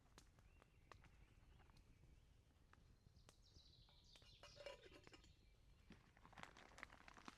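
Near silence: faint forest ambience with scattered soft clicks and a short falling chirp about four seconds in.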